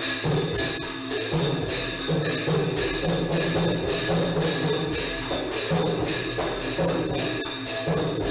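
Thai procession percussion played on a long drum (klong yao), hand cymbals and a hanging gong. It keeps a quick, even beat of about three strokes a second, with steady drum beats underneath and ringing metal tones held over them.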